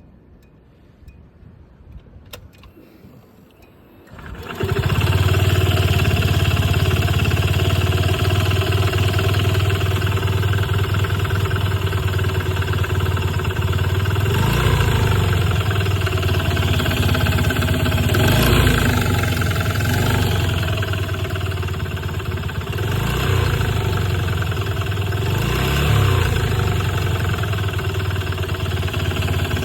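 Honda Gyro Canopy scooter engine started about four seconds in, then running at idle with a few brief blips of the throttle. It has the knocking and rattling ('kotokoto, katakata') that the owner cannot place, suspecting a bearing, the piston or the connecting rod, at 50,000 km with a newly replaced drive train.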